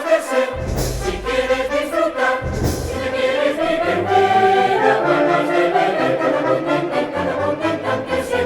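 Festival music with a chorus of many voices singing together, with two heavy low drum-like thuds about one second and three seconds in.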